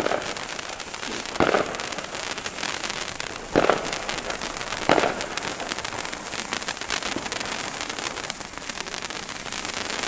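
Two handheld sparkler fireworks burning, a dense fizzing crackle of sparks, with three louder short pops about 1.5, 3.5 and 5 seconds in.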